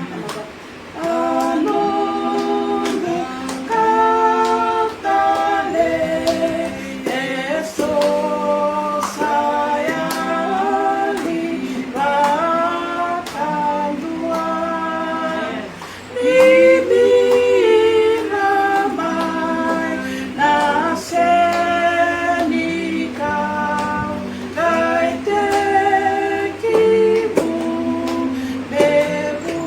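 Two women singing a hymn in phrases of long held notes, with little or no instrumental backing.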